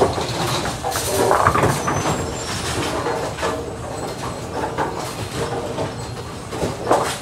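Bowling alley machinery: AMF 82-90XL pinspotters running with a steady rumble, broken by scattered clattering knocks as a pinsetter deck lowers and sets pins.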